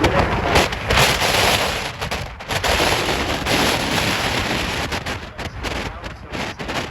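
Strong gusting wind buffeting the microphone: a rough rumble and crackle that swells and drops away in gusts.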